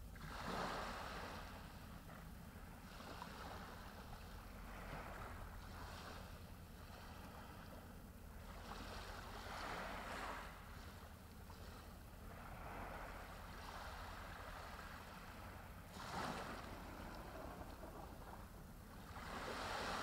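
Small waves breaking and washing up a sandy beach, in surges every few seconds; the loudest come about half a second in, around ten and sixteen seconds in, and near the end.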